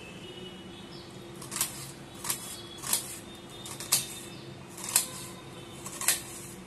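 A kitchen knife chopping an onion on a stainless-steel plate: six sharp taps of the blade against the steel, about one a second.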